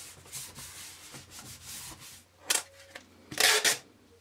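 Hands rubbing a paper template flat onto a thin MDF board, a soft scuffing. Then clear adhesive tape is pulled off its roll: a short rasp about two and a half seconds in, and a longer, louder one near the end.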